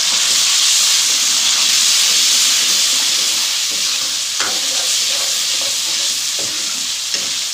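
Loud, steady sizzling and hissing of water just poured into hot oil in a karahi of frying onions and potatoes, easing off slowly as it boils down. A steel ladle stirring the pan gives a few knocks and scrapes against the metal.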